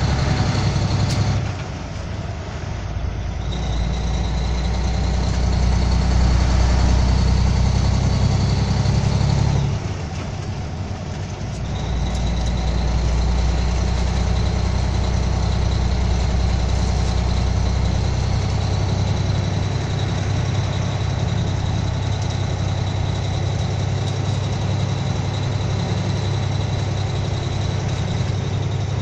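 Heavy truck's diesel engine running at highway speed, heard from inside the cab. The engine note drops off twice, about one and a half seconds in and again about ten seconds in, then pulls back up each time, with a thin high whine over it.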